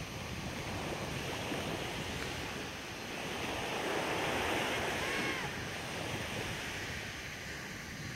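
Small sea waves lapping and washing up onto a sandy beach, with one louder wash about halfway through.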